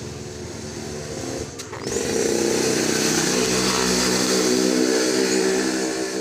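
A small combustion engine running, getting louder and shifting in pitch about two seconds in, then holding at a steady pitch.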